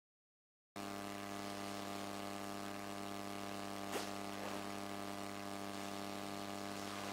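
Silence for under a second, then a steady electrical mains hum with many even overtones, broken once by a faint click about four seconds in.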